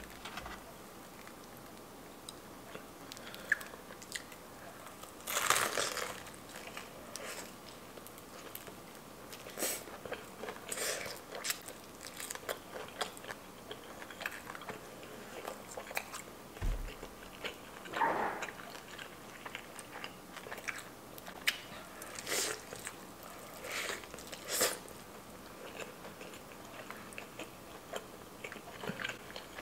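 Biting and chewing a piece of spicy fried chicken dipped in gravy: crisp crunches of the fried skin and wet chewing. A handful of louder crunches are spread through it.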